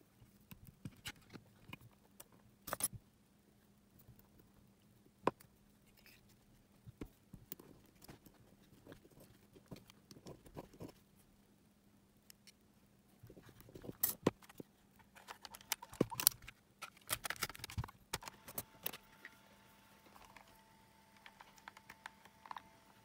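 Scattered small clicks, taps and rustles of hands handling a gum-stick battery and a cassette Walkman's plastic case, over a faint steady hum. Near the end faint steady tones come in.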